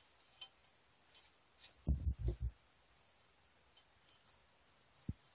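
Small metal parts of a Mercedes 722.6 valve body being handled by hand: a spring-loaded valve and its spring worked out of the bore, giving faint clicks, a quick run of soft knocks about two seconds in, and a sharp click near the end.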